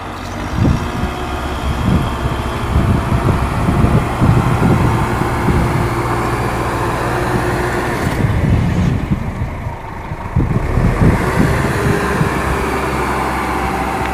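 A small motor running steadily, with irregular knocks and rattles throughout; the upper hiss drops away briefly in the middle.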